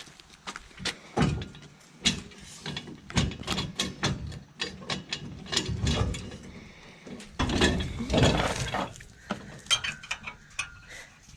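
Ratchet straps and gear being handled: irregular clicks, clinks and knocks, with a longer scraping noise a little past the middle.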